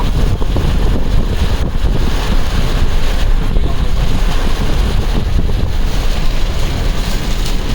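Strong wind buffeting the microphone: a loud, steady low rumble with no let-up.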